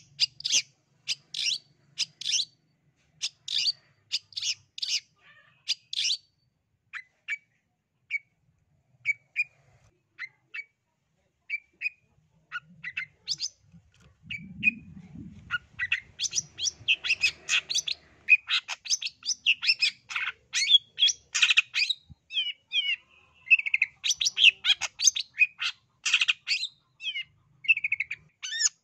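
Long-tailed shrike (cendet) singing: bursts of rapid, harsh chattering notes at the start and again through the second half, with sparser single chips between. Short slurred whistles are mixed into the chatter near the end.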